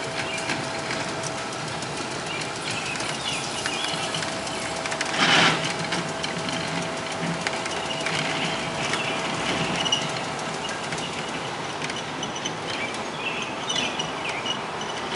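Vintage electric streetcar rolling past on its track, with a steady thin whine and a short loud burst of noise about five seconds in. Birds chirp at times.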